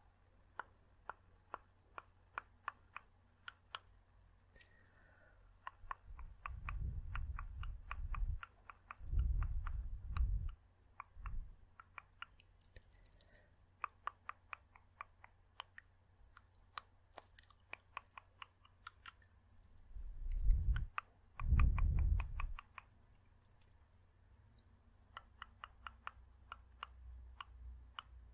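Close-miked ASMR mouth sounds: runs of quick tongue clicks and mouth clicks, a few a second, with short pauses between runs. Twice, in the first half and again past the middle, low muffled bursts into the microphone are louder than the clicks.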